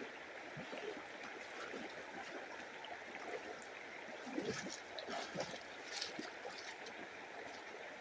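Creek water running steadily, trickling and gurgling over stones, with a few brief, sharper sounds around the middle.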